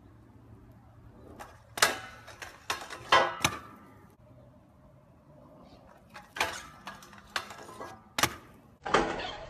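Trick scooter on a low steel street rail: sharp clacks as the deck and wheels strike the rail and the asphalt, a short grind of metal on the rail, then several more knocks and a brief scrape as the rider lands and rolls away.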